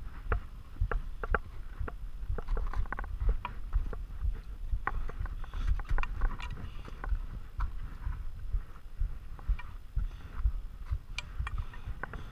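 Irregular clicks, knocks and scrapes of an ice axe and climbing gear against granite and ice, several a second, over a steady low rumble.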